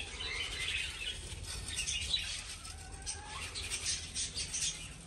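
Budgerigars flapping their wings in a flurry as the flock flies off, a commotion of wings with scattered chirps. They are nervous and quick to take flight.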